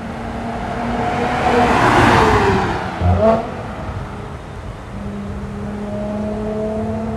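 Mercedes-AMG C43 (W205) twin-turbo V6 with a CGW valved cat-back exhaust, valves open, driving past under acceleration. The exhaust note swells to its loudest about two seconds in, drops in pitch as the car goes by, and has a short loud burst just after.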